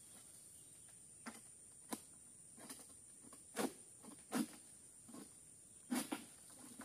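Faint, irregular short knocks and rustles, about one a second, from an oil palm harvester moving in the undergrowth and handling his long-pole sickle (egrek).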